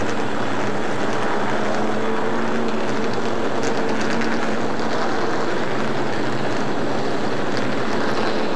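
Steady drone of race truck engines running, with a faint low engine note held throughout.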